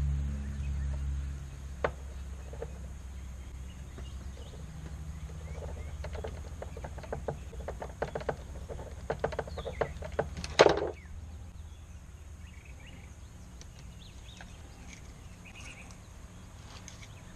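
Small clicks and taps of a screwdriver and metal fittings as a fuel line is worked loose on an outboard engine, with one louder, brief noise about ten and a half seconds in, over a steady low hum.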